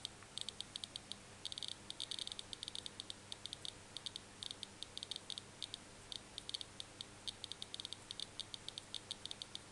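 Ion Tester EB-13 negative ion counter ticking out short, high-pitched clicks at an uneven rate, several a second and bunched in clusters. Each tick is its audible signal of negative ions detected from the ion wire beneath it.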